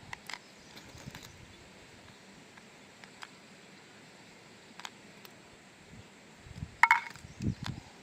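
A few faint mechanical clicks, then one sharp shot from an FX Impact M4 PCP air rifle about seven seconds in, with a brief ringing after the crack.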